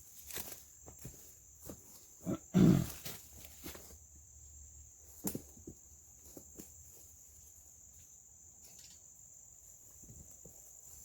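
Insects chirring in a steady high tone. Scattered knocks, with one loud, heavy thump about two and a half seconds in and a sharp knock about five seconds in.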